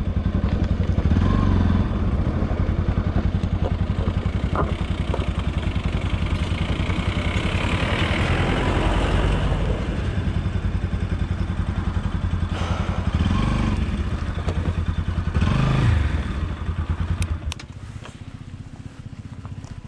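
Motorcycle engine running at low speed down a rough dirt trail, with a few short blips of the throttle. About three-quarters of the way through, the engine note drops away sharply and becomes much quieter.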